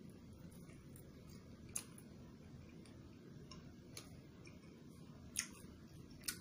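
Quiet eating sounds of a man chewing a mouthful of fried duck and rice eaten by hand: a few short sharp clicks, the loudest two near the end, over a faint steady hiss.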